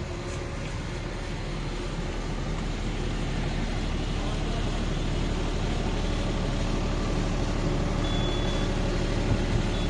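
Steady engine-like rumble with a low hum, growing slightly louder over the first few seconds.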